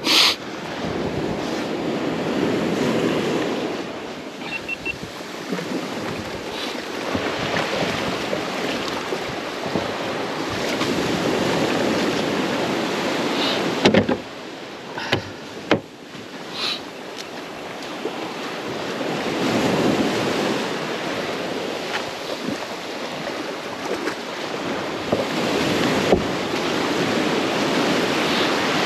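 Waves and wind on the microphone, the rush swelling and fading every several seconds. A sharp knock comes right at the start, and a few more come about halfway through.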